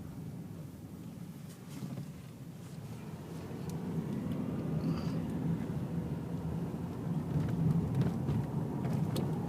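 Car road noise heard from inside the cabin: a steady low rumble of engine and tyres that grows louder about a third of the way in, as the car picks up speed.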